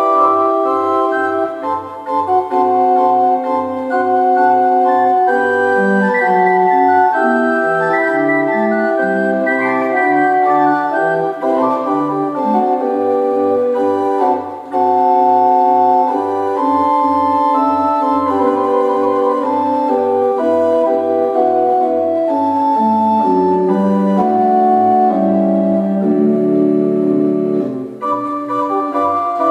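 Old English pipe organ, with parts possibly as early as 1780, playing a piece: sustained chords and a moving melody over short bass notes repeated about twice a second.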